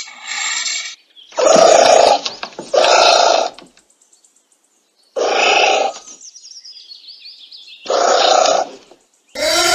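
A series of short animal calls, given as giant anteater calls: about five separate calls, each under a second long, with gaps of one to three seconds. The last call starts just before the end and falls in pitch.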